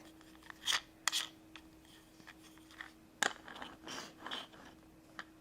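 Light clicks and scrapes of a small plastic toy car being handled, a few scattered taps with one sharper click about three seconds in, over a faint steady hum.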